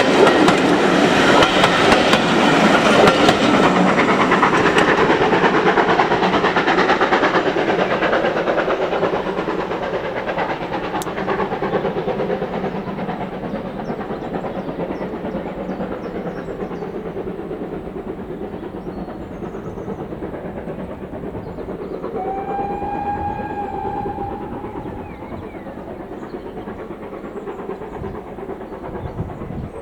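Steam-hauled train running past with wheels clattering on the rails, its noise fading as it moves away. A short whistle blast sounds about two-thirds of the way through.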